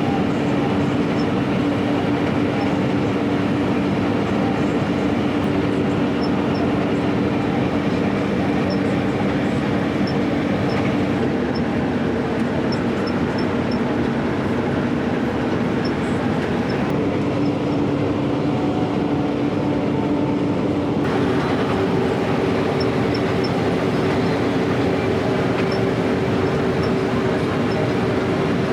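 New Holland combine harvester running while it harvests, heard from inside its cab: a dense, steady machinery drone whose hum shifts slightly in pitch a few times.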